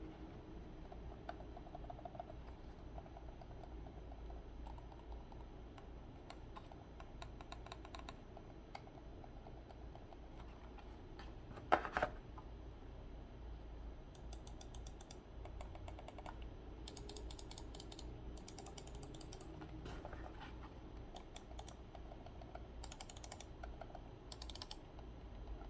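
Logitech MX Master mouse buttons clicked in quick runs. The first runs are soft, then later runs are sharper and brighter: the MX Master 3S's Quiet Click set against the MX Master 3's traditional click. A single louder knock comes about halfway through.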